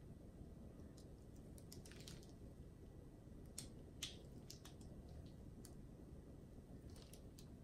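Near silence: a few faint, short clicks and soft ticks from gloved hands tilting a stretched canvas, the clearest two about three and a half and four seconds in.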